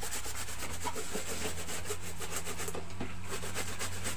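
Fast, rhythmic scraping, several even strokes a second, over a steady low hum.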